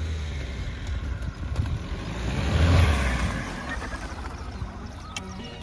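Mahindra Thar driven off-road in four-wheel drive: a steady low engine rumble with a rush of noise that swells louder about halfway through and then eases.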